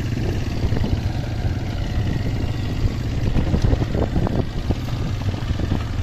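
Motorcycle engine running steadily while riding over a rough dirt track, with frequent short knocks and rattles throughout.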